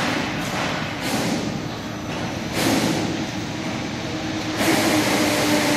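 Electric overhead bridge crane running in a steel factory hall: a steady mechanical hum and rumble with a droning tone that steps up louder about two and a half seconds in and again near the end.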